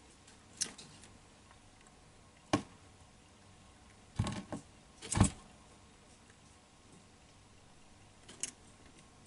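Metal feeding tongs clicking and tapping against a tiled enclosure floor in a few separate sharp knocks, the loudest about two and a half and five seconds in.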